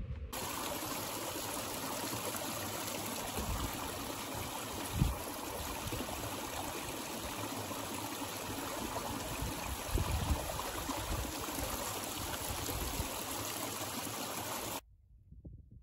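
Small moorland stream pouring over a rock lip into a pool, steady splashing and trickling while a soft water pouch is held in the flow to fill, with a couple of dull bumps. It cuts off suddenly near the end.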